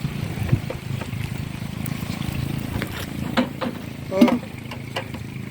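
Agricultural spraying drone's rotors humming steadily. Two short bursts of a voice come past the middle.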